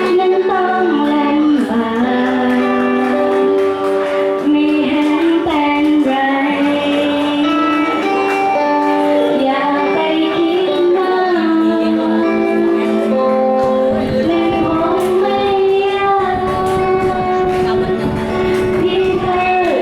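A girl singing a Thai song with instrumental backing, her voice gliding between held notes over steady chords.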